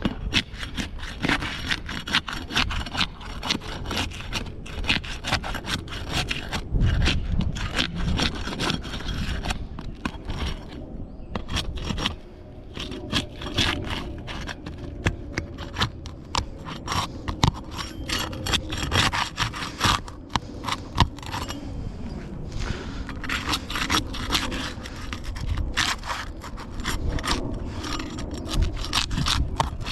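A hand tool scraping wood in quick repeated strokes, with a short pause about ten seconds in before the strokes resume.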